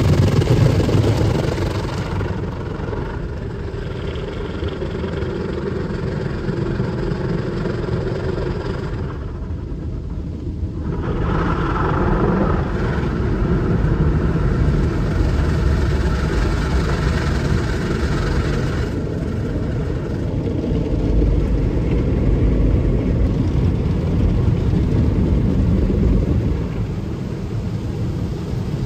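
Automatic soft-touch car wash heard from inside the car: water spray and soapy foam pelting the windshield and cloth brushes working over the body, over a steady low rumble of the wash machinery. The hiss shifts in character partway through as the car passes from foam to rinse.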